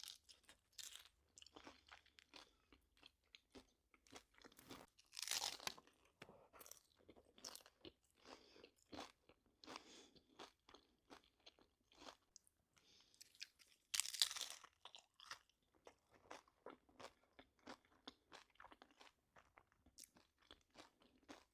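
A person chewing crunchy fast food, with a steady run of faint wet chewing clicks and louder crunches about five and fourteen seconds in.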